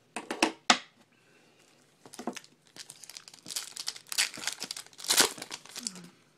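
Baseball card pack wrapper being torn open and crinkled: irregular sharp crackles and rustles, loudest just under a second in and again about five seconds in.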